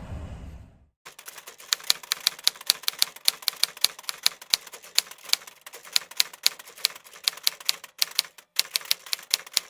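Typewriter keys clacking in a quick, uneven run of about three to four strokes a second, starting about a second in after the traffic noise cuts out.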